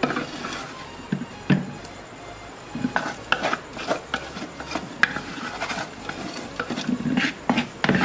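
Irregular knocks and short scrapes of a ceramic serving bowl being handled and shifted on a tabletop, with a cloth rubbing against it.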